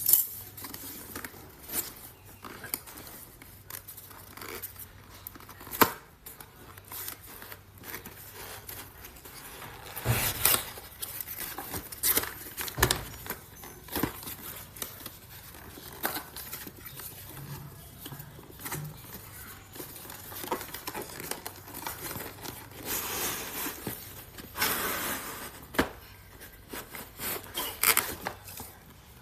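Product packaging handled by hand: cutting, tearing and crinkling of box and plastic wrap, with scattered clicks and knocks, and longer stretches of rustling twice, about ten seconds in and again after twenty.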